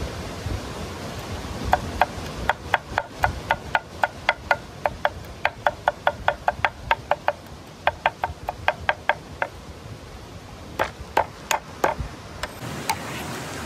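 Meat cleaver chopping on a wooden cutting board: a run of quick, sharp knocks, about four or five a second, with a short break midway, then a few heavier single strikes near the end.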